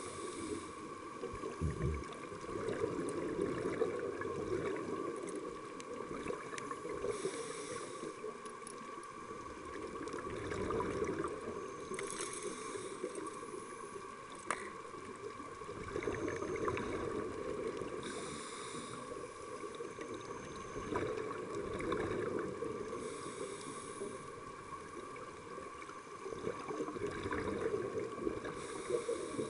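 Underwater sound through a dive camera's housing: a steady low rush of water with a faint steady hum, and a scuba regulator's breath hissing about every five to six seconds.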